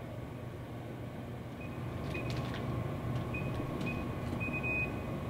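Vending machine keypad beeping as its buttons are pressed: about five short high beeps starting a little under two seconds in, the last one longer, with light button clicks, over a steady low hum.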